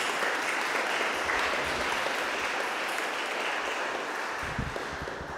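Congregation applauding, a dense sustained clapping that begins to die away near the end.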